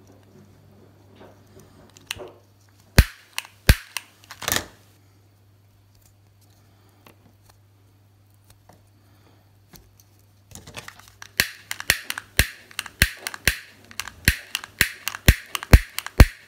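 Piezo igniter of a long-nosed butane lighter clicking: three sharp clicks between three and four and a half seconds in, then a quick run of clicks, several a second, over the last six seconds.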